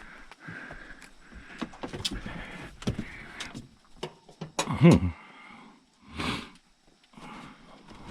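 Clanks, knocks and scrapes of a kitchen range's sheet-metal parts being handled and pried at during teardown. The loudest clank comes about five seconds in.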